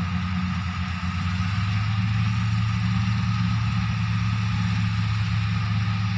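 Shaktiman 3737 sugarcane harvester's diesel engine running steadily, a constant low drone with machinery noise over it.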